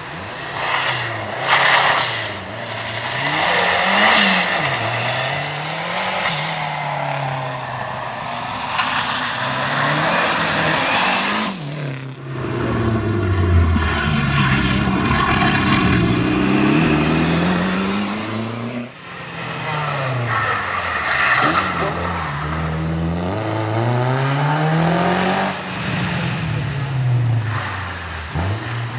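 Rally cars driven hard on a slippery stage, their engines revving up and dropping back over and over through gear changes as each car passes. The sound breaks off abruptly twice, about twelve and nineteen seconds in, as a new car takes over.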